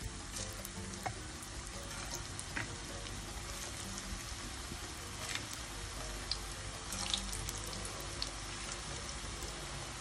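Cassava balls deep-frying in hot oil in a pan: a steady sizzle with scattered crackling pops.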